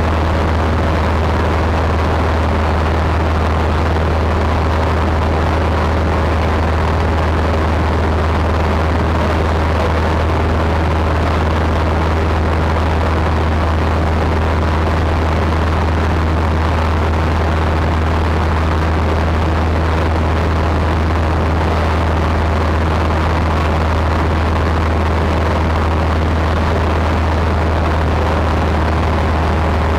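Single-engine Cessna's piston engine and propeller running steadily in level cruise, heard from inside the cockpit as a constant low drone.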